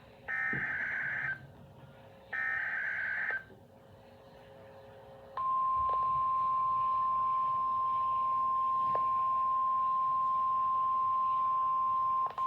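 Emergency Alert System SAME header: two short bursts of warbling data tone, each about a second long, about two seconds apart. After a short pause, a steady single-pitched alert tone, the 1050 Hz attention signal used by NOAA Weather Radio, starts about five and a half seconds in and holds, with a momentary dropout near the end.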